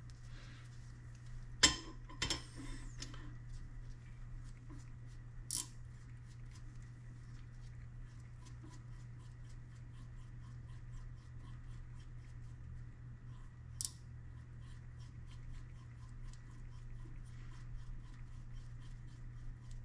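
Depth micrometer being turned down on a steel straight edge: a steady run of small, closely spaced clicks as the thimble turns, with a few sharper metal clicks near the start and one louder click about fourteen seconds in.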